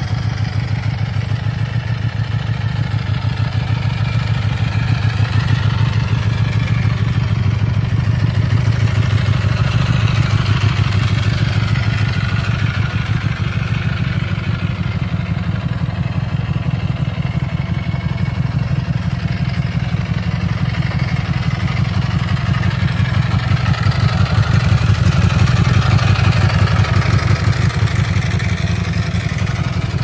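2018 Ducati Panigale V4S's 1103cc Desmosedici Stradale V4 engine idling steadily through its stock exhaust.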